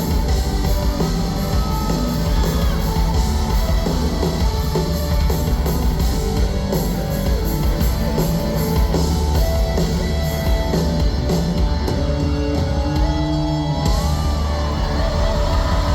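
Loud live rock music from a band on stage: drums, electric guitars and vocals.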